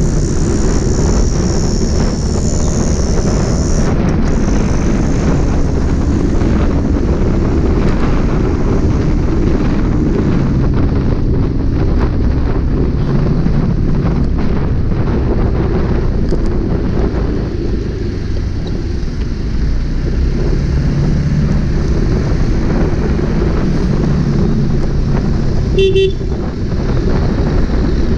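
Steady engine, wind and road noise from a two-wheeler riding through traffic, with a short vehicle horn honk near the end.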